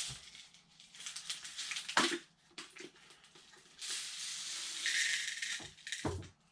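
Liquid fabric conditioner being poured from its bottle into a washing machine's dispenser drawer, a steady pouring hiss for a couple of seconds, with a few plastic knocks as the bottle and drawer are handled.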